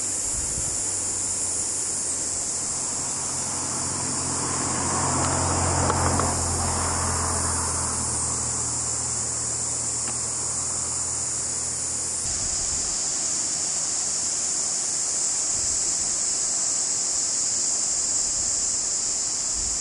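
Dense, steady, high-pitched insect chorus ringing from the coastal vegetation. Under it, a low hum swells around the middle and cuts off about twelve seconds in.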